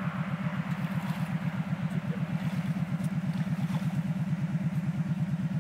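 ATV engine idling steadily with an even, rapid pulse, the quad sitting bogged down in a mud hole.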